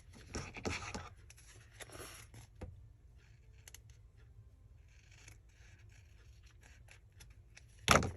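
Paper crafting at a table: paper and a tissue napkin being handled and rustled, with a few light clicks, and one sharp knock near the end.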